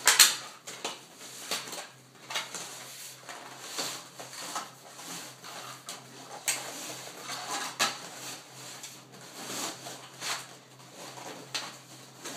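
Cardboard packaging scraping, rustling and knocking as an inner box is slid out of a long cardboard sleeve by hand, with a sharp knock just after the start.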